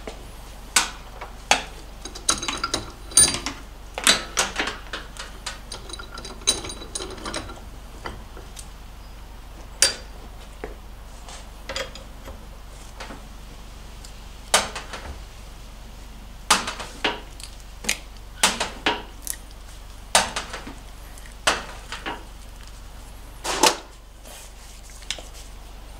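Irregular metallic clinks and knocks of a wrench working the AN fittings of old fuel hoses loose in a bench vise, with some of the first clinks ringing.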